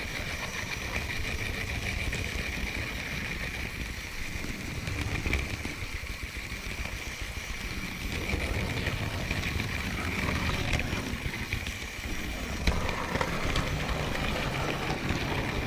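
Model train running along its track, heard from a camera riding on the train: a steady rattle of metal wheels on the rails with a steady high whine.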